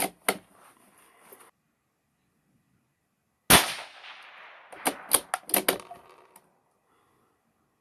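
A single shot from a 17 Mach 2 bolt-action rimfire rifle: one sharp crack with a short fading tail. About a second later comes a quick run of metallic clicks as the bolt is worked to eject the case and chamber the next round.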